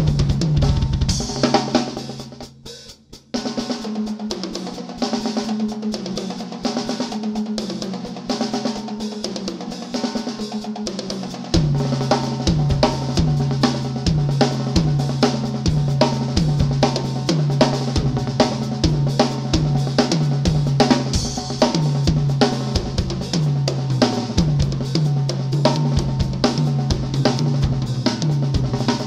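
Metal drum solo on a Tama acoustic drum kit with Meinl cymbals: fast snare, tom and cymbal hits. The playing dips almost to nothing for a moment about two seconds in, goes on lighter without bass drum, then about a third of the way through rapid, steady bass drum strokes come in under the snare and cymbals and carry on to the end.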